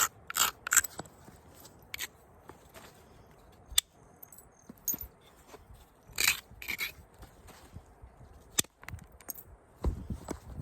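Stone being worked with an elk antler tool: scattered short, sharp clicks and taps of antler on stone, with faint scraping between them.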